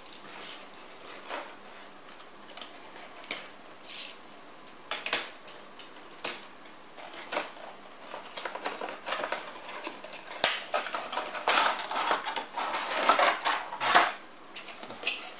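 A cardboard toy box being opened with a utility knife and its cardboard and plastic packaging handled. It sounds as a string of irregular scrapes, clicks and rustles that grow busier near the end.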